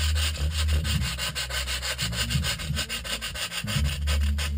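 A block of extruded polystyrene (XPS) foam rubbed back and forth by hand on a sheet of sandpaper: a fast, even scratching of several strokes a second as the foam is sanded to shape.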